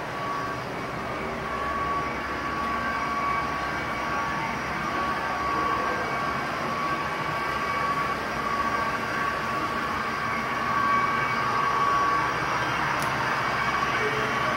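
HO-scale model freight trains running on the layout: a steady motor whine and rolling rumble that grows gradually louder.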